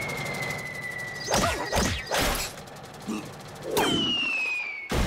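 Cartoon sound effects: a high whistle falling slowly in pitch, a quick run of whooshes and whacks, then a second falling whistle that starts suddenly and is cut off by a loud crash.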